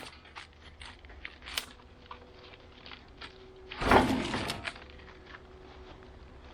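Knocks and clicks of a log and gear being handled by hand on a bandsaw mill, with one heavy thud about four seconds in, over a faint low steady hum.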